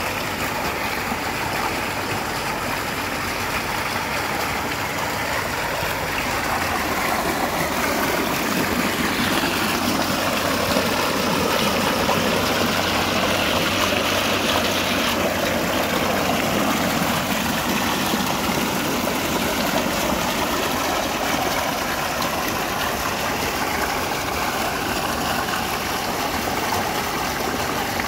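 Tubewell outlet pipe gushing a heavy jet of water into a concrete tank, a steady rushing splash that is louder for several seconds in the middle. A low steady hum from the pump runs underneath.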